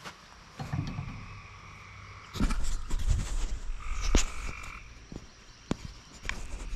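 Frogs calling in long, steady, trilling tones, two calls each lasting a second or two. Loud low thumps and rumble from the camera being handled come in the middle, with scattered clicks.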